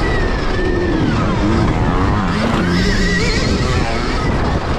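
Stark Varg electric motocross bike's motor whining, its pitch gliding up and down as the throttle opens and closes, over a steady rush of wind on the microphone and tyre noise on the dirt.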